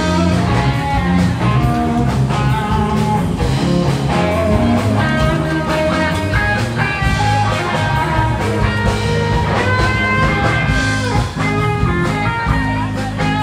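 Background music: a rock-blues tune led by guitar over a steady bass line.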